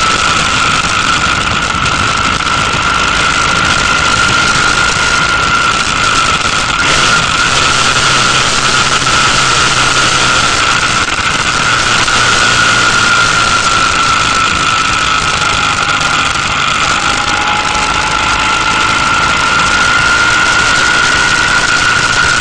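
Motorcycle riding along at a steady cruising speed: engine noise under wind rushing over the bike-mounted camera's microphone, with a steady high whine that drifts slightly in pitch.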